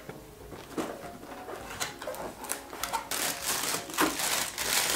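Cardboard box flaps and a plastic bag being handled as a wrapped lamp holder is taken out: scattered rustles and clicks at first, then dense crinkling of the plastic from about three seconds in.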